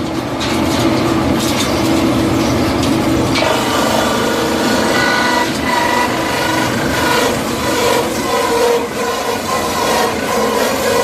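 Industrial wood crusher running and shredding wood, a loud, steady grinding clatter; about three and a half seconds in a high metallic whine joins it.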